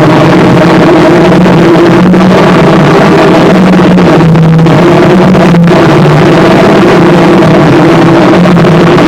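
Harsh noise music: a dense, heavily distorted wall of noise at full loudness over a low droning hum that shifts slightly in pitch, with a brief dropout a little past halfway.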